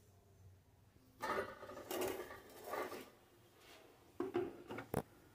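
Clattering and knocks from a stainless-steel mixer-grinder jar being handled and fitted onto the mixer base, with a few sharp clicks near the end; the motor is not running.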